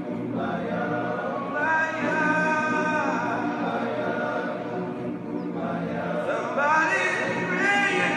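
Men's choir singing a cappella in several parts (melody, tenors, baritones, basses), holding chords, with the voices sliding up between notes near the end.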